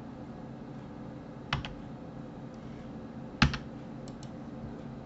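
Keystrokes on a computer keyboard: a quick double click about one and a half seconds in, a louder single keystroke about three and a half seconds in, then two faint ticks, over a steady low hum.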